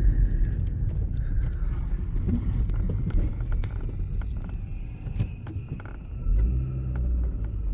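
Car driving along: a steady low rumble of engine and road noise with light scattered clicks, and a stronger low engine hum coming in about six seconds in.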